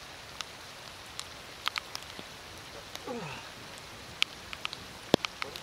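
Rain falling, with raindrops striking the camera in irregular sharp ticks over a steady hiss.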